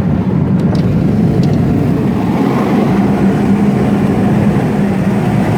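Motor vehicle running steadily, with a continuous low rumble.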